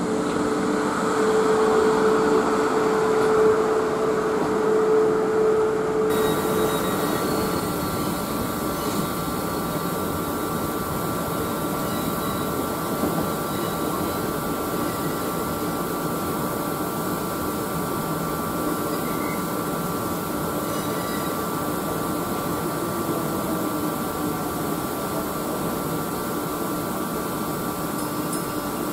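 Class 442 electric multiple unit running in over the station pointwork for about six seconds, with a steady mid-pitched whine. After a sudden change it stands at the platform, its onboard equipment giving a steady mechanical hum with two faint high whines.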